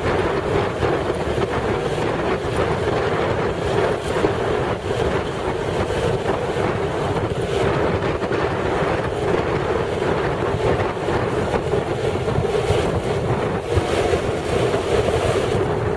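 Steady wind rush over the microphone of a moving motorcycle, mixed with its engine and road noise.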